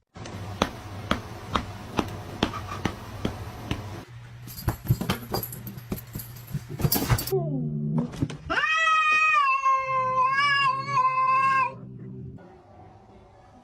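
Domestic cat yowling: a short falling call, then one long, drawn-out meow of about three seconds. Before it, a low hum with a run of sharp clicks about twice a second.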